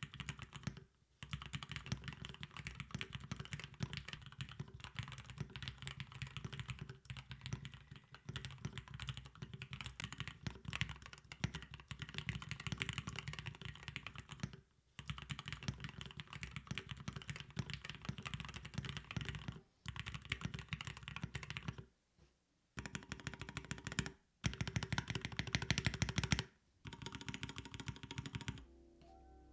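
Fast, continuous typing on a Vicious 40 mechanical keyboard with Cherry MX Black switches and NicePBT keycaps, its case damped with three layers of tape and polyfill. There are a few brief pauses between runs of keystrokes.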